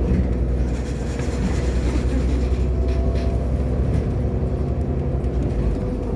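Irisbus Agora L articulated city bus in motion: its engine and running gear give a steady, low-pitched drone with no break.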